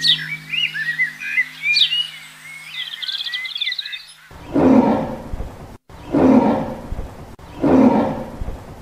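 Birds chirping over a low steady hum, then three loud rasping roar-grunts of a big cat, each under a second and about a second and a half apart.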